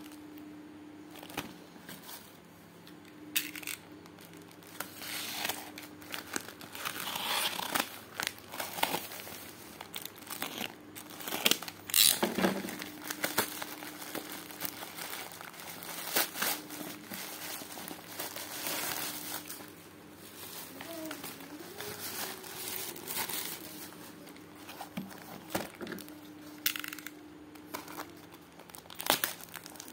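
Packaging being opened by hand: plastic wrapping crinkling and packing tape being slit with a utility knife and torn, in irregular bursts with sharp clicks. A faint steady low hum runs underneath.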